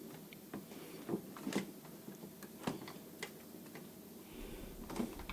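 A few faint, scattered clicks and taps, spaced irregularly, over a quiet room background.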